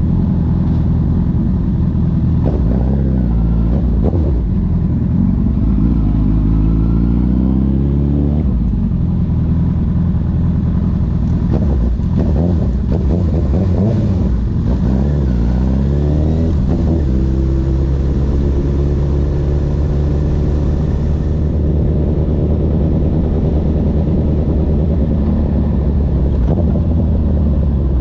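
Honda CB1000R's inline-four engine through a CS Racing full exhaust, pulling while riding. The pitch climbs and falls several times through the gears in the first half, then holds steady at a cruise.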